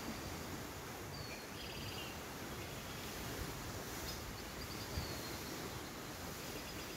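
Outdoor ambience: a steady background hiss with faint bird chirps about a second in and again around four seconds.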